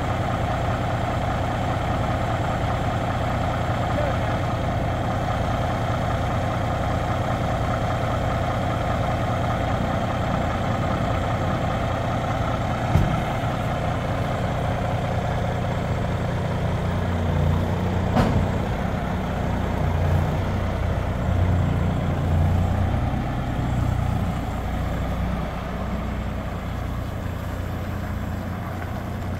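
Diesel engine of a Kenworth semi-tractor idling steadily, with a short click about halfway through and a sharp pop a few seconds later. The engine then pulls harder in uneven surges as the tractor moves off, fading away near the end.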